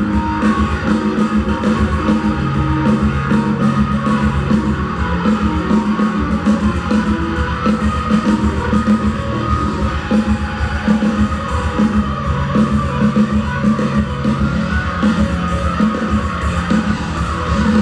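Rock band playing live through a stage PA, an instrumental passage without vocals: electric guitar over bass and a drum kit, recorded from the audience.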